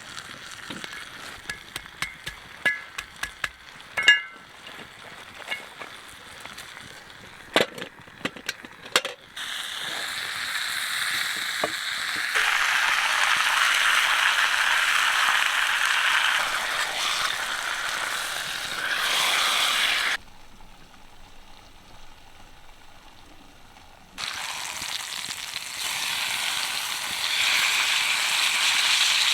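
Scattered metal clinks and knocks against a cast-iron pan, then country ham frying with a loud, steady sizzle. The sizzle cuts out abruptly for about four seconds and then comes back.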